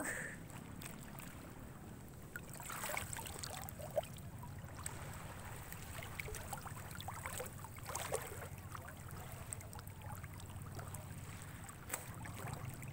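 Shallow seawater sloshing and splashing close to the microphone, with scattered small splashes over a steady low rush.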